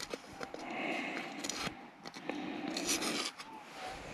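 Rubbing and scraping sounds in a few bouts about a second long, with scattered light clicks.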